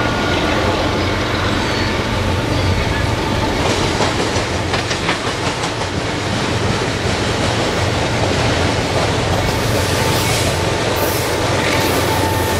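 Approaching Union Pacific freight train: its diesel locomotives running with a steady low rumble while the wheels click over the rails, growing nearer.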